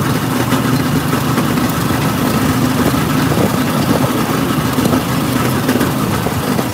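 The motorcycle engine of a tricycle (a motorcycle with a sidecar) running steadily, heard from inside the sidecar.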